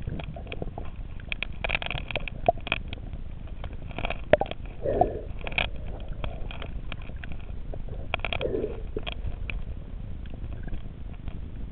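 Audio recorded with the camera underwater: a steady muffled rumble of water with scattered sharp clicks and crackles, and a dull whoosh that swells about every three and a half seconds.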